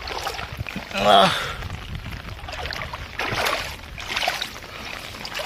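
Water sloshing and splashing around a gill net being checked in shallow muddy floodwater, with a brief man's voice about a second in.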